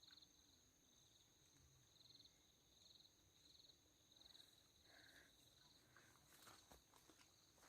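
Near silence with faint insect chirping: a short high trill repeating a little under twice a second over a steady high whine. Faint footstep rustles near the end.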